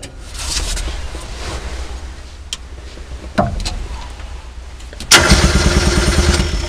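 Rebuilt electric starter of an MTZ-80 tractor cranking the petrol starting engine with its fuel still shut off: a sudden loud, fast rhythmic cranking from about five seconds in, after a couple of clicks.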